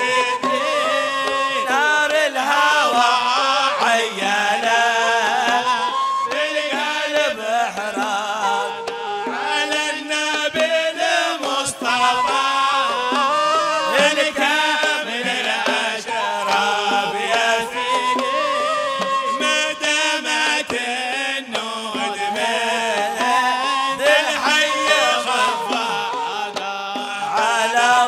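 Men's voices chanting a religious qasida (Hadhrami inshad) in a continuous melodic line, accompanied by double-headed hand drums beating along.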